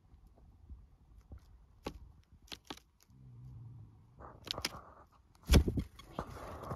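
A few sharp taps from a red-breasted nuthatch pecking at the feeder in the first three seconds. Then plastic crinkles, and a loud thump comes about five and a half seconds in as the camera is picked up and handled.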